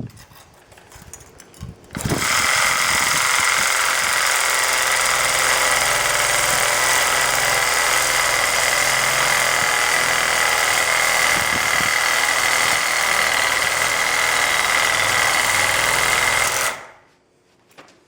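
A power tool's motor running loud and steady with a high whine. It starts suddenly about two seconds in, runs for about fifteen seconds, then winds down near the end.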